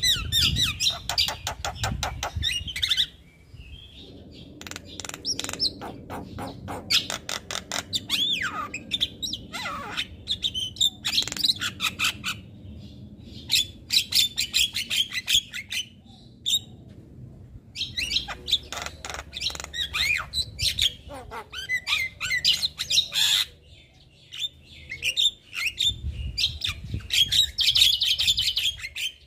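Javan myna singing a long, varied song of rapid chattering clicks mixed with short whistled notes, in bouts broken by a few short pauses.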